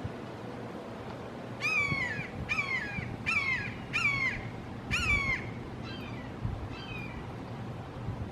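Red-shouldered hawk calling: a rapid series of loud, slurred kee-ah screams, each dropping in pitch. Five strong calls come in quick succession, followed by two fainter ones near the end.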